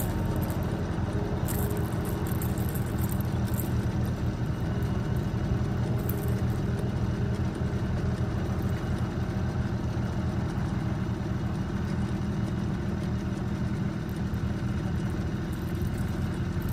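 Boat's outboard motor running steadily at trolling speed, a constant low drone.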